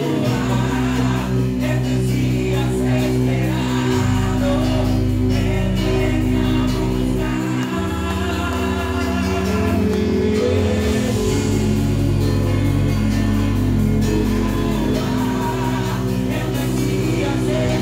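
Live church praise music: a man and women singing into microphones over a band with drum kit, the low chord notes shifting every few seconds.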